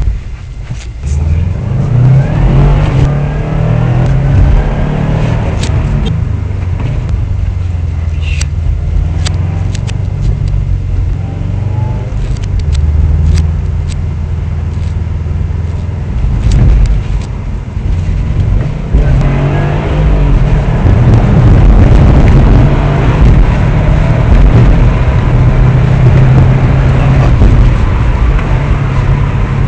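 Subaru WRX STI's turbocharged flat-four engine running loud, with a rise in revs a second or two in and a louder stretch from about two-thirds of the way through.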